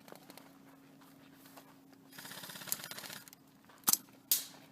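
Airsoft electric gun firing a short full-auto burst, a rapid rattle lasting about a second, followed by two sharp loud snaps near the end.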